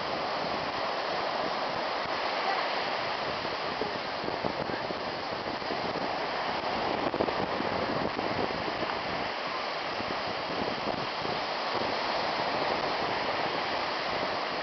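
Ocean surf washing onto the beach, a steady rush of waves.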